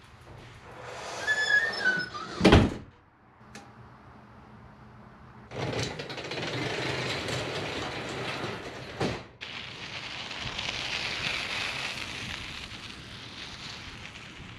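A door squeaks as it swings shut, then closes with one loud bang. A few seconds later a steady rushing noise starts and runs on.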